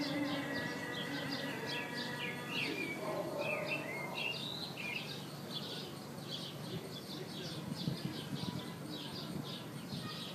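Many small birds chirping rapidly and continuously. In the first second or two the last held note of a muezzin's call to prayer fades out.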